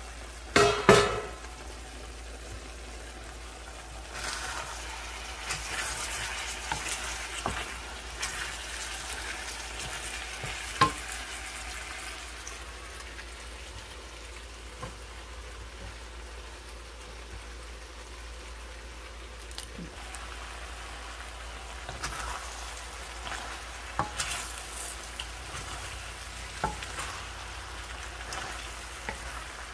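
Chicken and green pepper sizzling steadily in a stainless-steel wok, with a loud metal clank about a second in. Later, water spinach goes into the pan and a wooden spatula stirs it, knocking and scraping against the pan over the sizzle.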